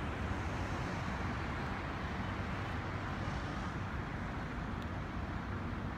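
Steady city traffic noise heard from above the streets, an even wash of road sound with no single vehicle standing out.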